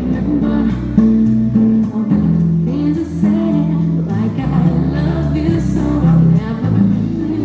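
Dance music with a steady beat and singing.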